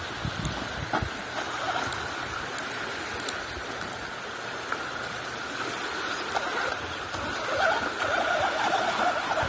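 Traxxas Rustler 4x4 VXL RC truck driving over stones at the water's edge, its brushless electric motor whining, louder and wavering in pitch near the end. Waves wash on the shore underneath.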